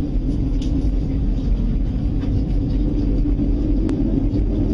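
Steady low rumbling drone with a constant hum, one of the amateur recordings of the so-called mysterious 'strange sounds' heard from the sky.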